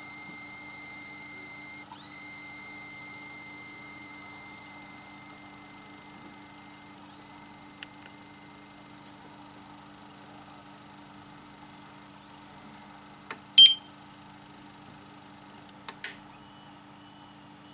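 APC 500 uninterruptible power supply giving off a steady high-pitched whistle over a low hum. The whistle drops out briefly and shifts every few seconds, and a single short, loud beep sounds about three-quarters of the way through.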